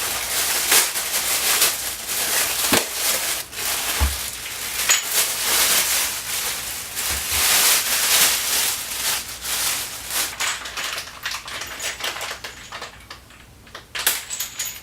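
Packaging being unwrapped and handled: continuous crinkling and rustling with many small crackles, and a dull thump about four seconds in.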